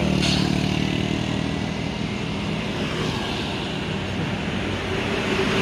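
Road traffic: motorcycles pass close by over the steady drone of buses and a truck coming up the highway.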